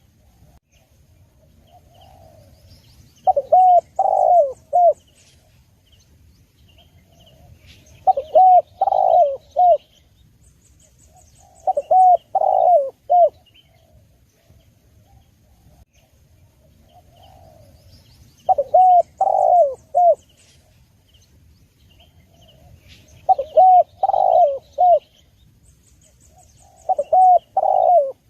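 Spotted dove cooing. There are six phrases a few seconds apart, each a soft lead-in note followed by a quick run of coos. Faint high chirps sound in the background.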